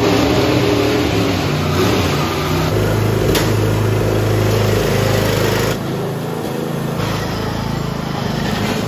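Riding lawn mower's small engine running steadily, its level stepping down abruptly a couple of times, with a single sharp click about three seconds in.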